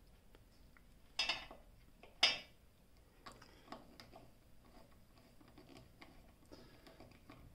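Small ticks and clicks of a screwdriver working the terminal screws of a plastic 15 A, 220 V plug, with two louder brief scrapes about one and two seconds in.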